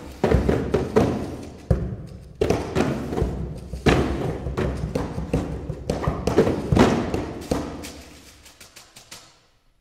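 Paper percussion: irregular sharp thumps from hands striking cardboard boxes, mixed with paper tearing and crumpling, thinning out and dying away near the end.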